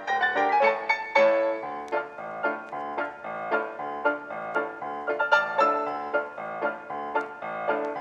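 Piano music: a quick run of single notes and chords, several to a second.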